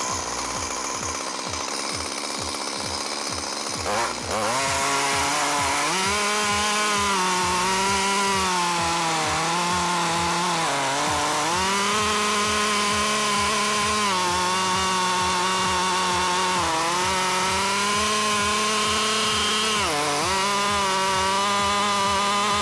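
Stihl chainsaw running at full throttle and cutting through a large log, its engine pitch dipping briefly a couple of times as the chain bites and then recovering. The saw's sound begins with an abrupt change about four seconds in, after a different, noisier sound.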